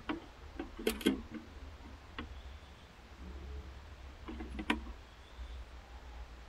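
A few light clicks and knocks of clear plastic tubing being handled against the neck of a plastic canister. There are two close together about a second in, and another sharp one near the end.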